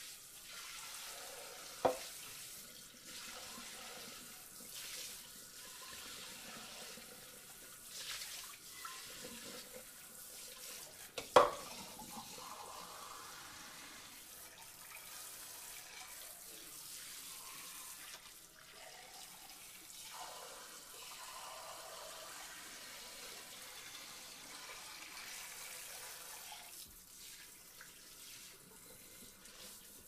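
Water spraying from a sink faucet onto dishes, a steady rushing that wavers in strength. There are two sharp knocks, a small one about two seconds in and a louder one near the middle.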